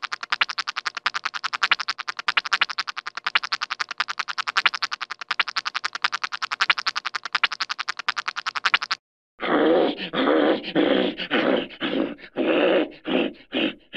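Gross comedy sound effects: a fast, even rattle of sharp clicks for about nine seconds, stopping abruptly, then after a short gap a string of short, irregular rough bursts.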